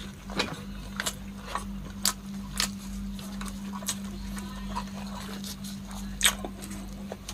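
Close-miked wet chewing and lip-smacking of a person eating butter garlic giant freshwater prawns: a string of sharp smacks and clicks every half-second or so, the loudest about six seconds in, over a steady low hum.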